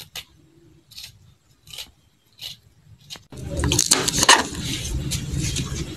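Kitchen handling noise: soft, short scrapes about once a second, then from about three seconds in a louder, continuous clatter and rustle.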